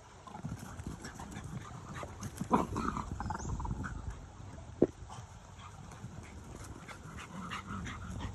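Two terriers, a Decker terrier puppy and a Patterdale terrier, play-fighting: irregular scuffling and dog noises, with a louder one about two and a half seconds in and a sharp knock just before five seconds.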